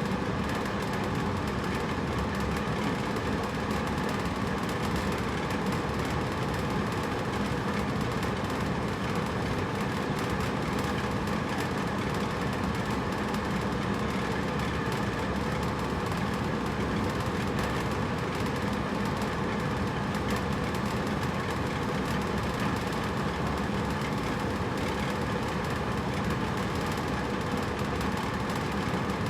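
Hotel room air conditioner running steadily: an even blowing hum with a faint low drone, no changes.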